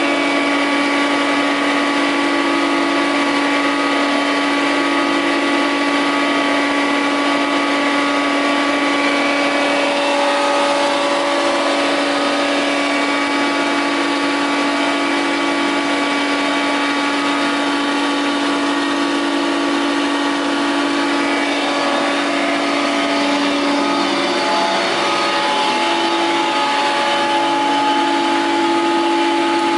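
KOFAMA Koronowo DSPA-32 three-sided planer-thicknesser running steadily: a constant hum at one pitch with a fainter whine over it.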